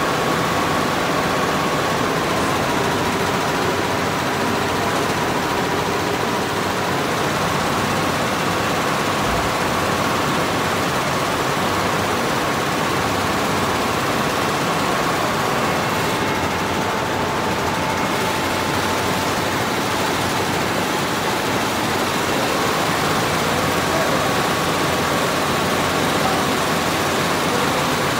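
34-head, 6-colour industrial embroidery machine running, its row of needle heads stitching together: a steady dense mechanical noise with a faint hum that shifts slightly in pitch a few times.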